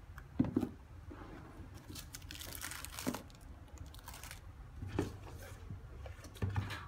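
Clear plastic packaging and tissue crinkling and rustling as they are handled, with several sharp knocks, the loudest about half a second in.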